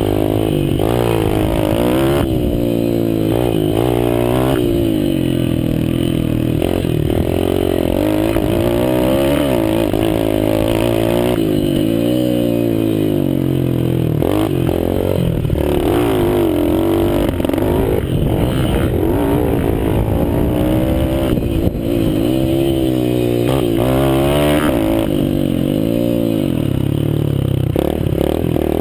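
Mini dirt bike engine being ridden hard, its pitch repeatedly rising as the throttle opens and falling as the rider backs off through the bends.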